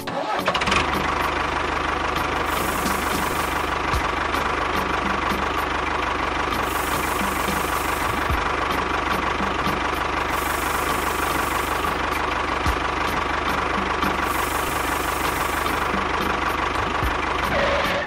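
An engine running steadily at an even speed, cutting in suddenly and stopping suddenly. A dull knock recurs about every four seconds.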